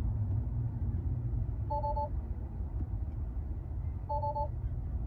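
Tesla Model X cabin alert chime: two short bursts of quick two-note beeps about two and a half seconds apart, sounding as the Neutral control on the touchscreen is pressed, over a steady low rumble.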